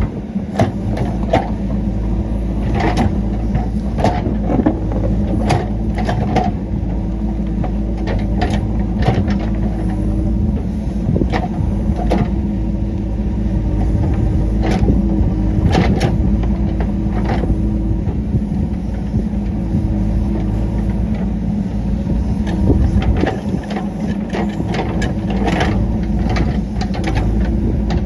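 JCB 3DX backhoe loader's diesel engine running steadily under work, with frequent sharp clanks and knocks throughout.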